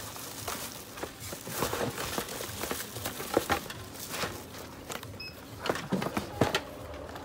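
Clear plastic bag crinkling and a cardboard box being handled as a ring light is pushed back into its box, with irregular rustling and a few sharper knocks in the second half.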